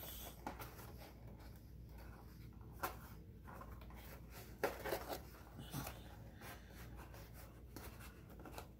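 Cardstock rubbing and crinkling softly as hands press and shape the panels of a paper cap, with a few short, sharper rustles about three and five seconds in.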